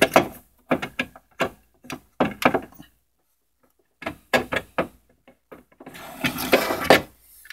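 Plastic projection-lamp module being pushed and worked into its housing in the TV: a run of short plastic clicks and knocks, a pause about three seconds in, then a longer scraping rattle near the end as it is forced into the tight slot.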